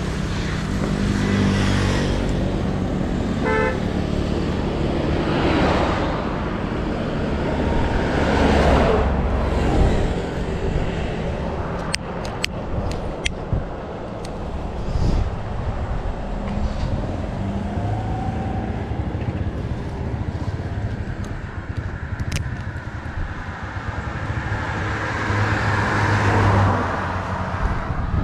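Riding noise from a Yamaha WR155 single-cylinder dual-sport motorcycle on the road: the engine running under wind and road noise, with traffic around. A short horn toot sounds about three and a half seconds in.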